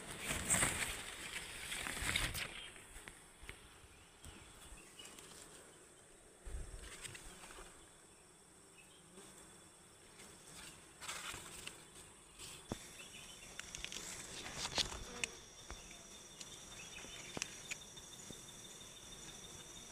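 Wild honeybees buzzing around their open comb, loudest in the first two seconds, with scattered light knocks and rustles. From a little past halfway a thin, steady high-pitched insect trill runs under it.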